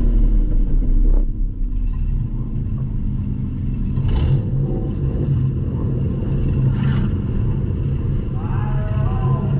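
Demolition derby car's engine running with a heavy, steady rumble, heard from inside the cab. Two brief sharp bangs cut through it, about four and seven seconds in.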